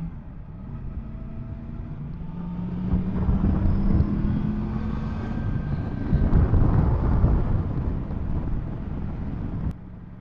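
Yamaha MT-10 SP's crossplane inline-four engine running on the move, its pitch climbing slowly over the first few seconds, with heavy wind rushing over the microphone that grows louder partway through. The whole sound drops suddenly near the end.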